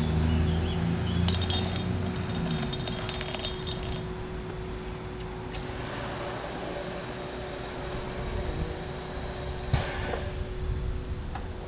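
Narrow-gauge steam locomotive 99 1782-4 standing at the platform, giving a steady hum with hissing steam. There is low rumbling and some light clinking in the first few seconds, and a single knock near the end.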